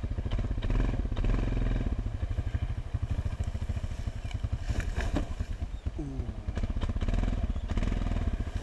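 ATV engine running steadily with an even, rapid firing pulse, with a few sharp knocks and rattles from the machine about halfway through and near the end.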